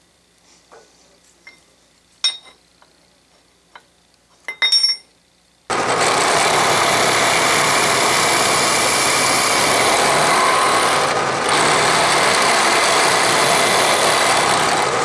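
A Bridgeport vertical mill's 3/4 in end mill cutting a flat on a rusty steel crank handle: a loud, steady cutting noise that starts abruptly about six seconds in, after a few light clinks, and runs on with a brief dip about halfway.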